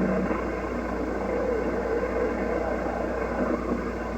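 Odd, garbled signal coming through a CB radio's speaker: a steady, rough noise with no clear voice in it, which the operator guesses could be solar conditions, two stations keying up at the same time, or jammers.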